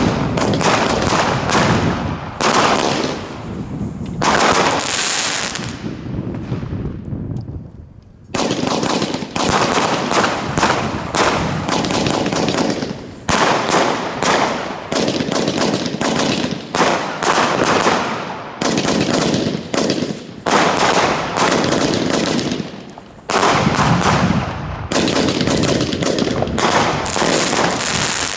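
Lesli 'Special Effects' category 2 compound firework cake firing: rapid volleys of small-calibre tube launches and shell bursts in quick succession, with a brief lull about seven seconds in.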